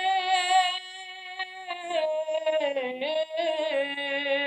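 A solo voice singing an Urdu naat unaccompanied, holding long drawn-out notes that bend in pitch, with a softer stretch about a second in.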